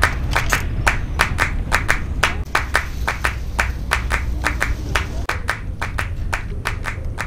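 Background music led by a quick, steady clapping or percussion beat over a low hum.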